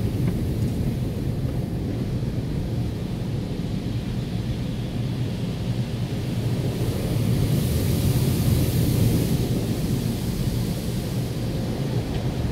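Automatic tunnel car wash heard from inside the car: a steady low rumble of the wash brushes and water working over the body and windshield, with a hiss of spray growing stronger for a couple of seconds in the middle.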